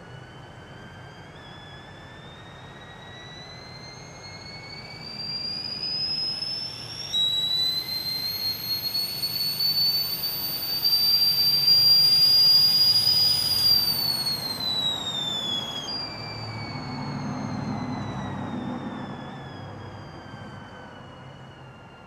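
Tea kettle whistling: the whistle climbs slowly in pitch and grows louder, jumps up sharply about seven seconds in, then slides back down and fades over the last several seconds.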